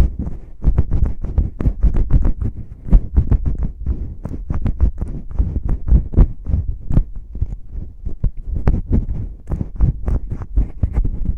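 Fingers rubbing, scratching and tapping on an ASMR ear microphone: rapid, irregular muffled thumps and crackly rubs, several a second, heavy in the low end.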